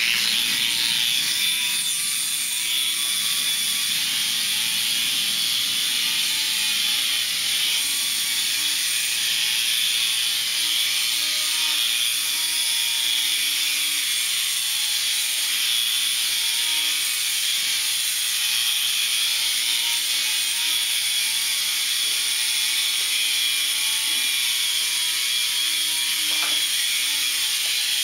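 Air Hogs Havoc Heli toy RC helicopter in flight, its small electric motor and rotors giving a steady high whir that shifts slightly in pitch now and then as the throttle changes.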